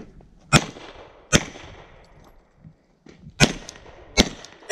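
Four handgun shots fired in two pairs, each pair about three quarters of a second apart, with the pairs about two seconds apart. Each shot is a sharp crack followed by a short echo.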